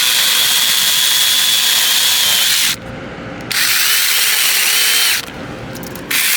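Sainlogic battery-powered 6-inch mini chainsaw with a brushless electric motor, running with a high whine as it cuts through a maple branch. It runs in three bursts: the first stops a little under three seconds in, the second runs for under two seconds in the middle, and the third starts near the end.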